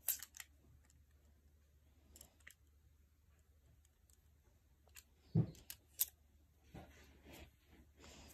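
Plastic-handled household scissors spun around a finger, their handles and blades clicking and clacking at irregular intervals, with the loudest clack about two-thirds of the way through.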